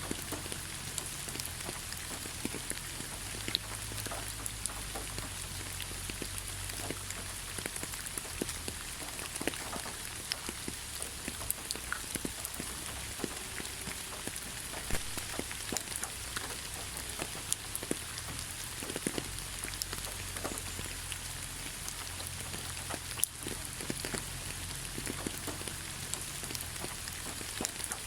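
Steady rain falling on leaves: an even hiss with many separate drops ticking through it.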